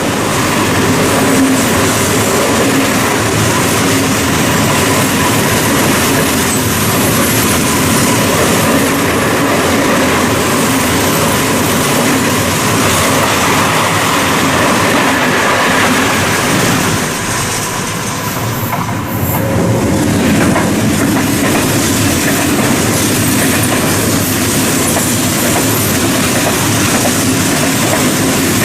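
Freight train wagons rolling past close by: wheels clattering on the rails with a steady, loud rumble that dips briefly about two-thirds of the way through.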